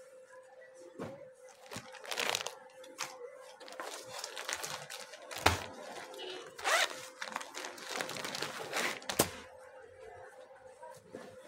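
Clear plastic packaging crinkling and rustling as a packed suit of cloth is handled and opened, with cloth being unfolded. There are two sharp snaps, one about halfway and one near the end, over a faint steady hum.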